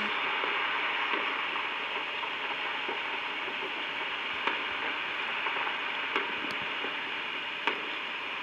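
Steady hiss like static, with a few faint short clicks.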